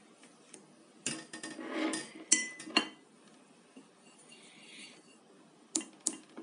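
A thin metal tool clinking and scraping against a ceramic plate of paint: a few sharp clinks with a short ring about two to three seconds in, a brief scrape, and two more clinks near the end.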